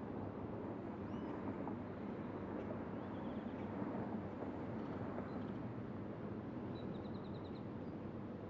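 Steady low hum of road traffic, with a few faint bird chirps and two short rapid trills, the second near the end.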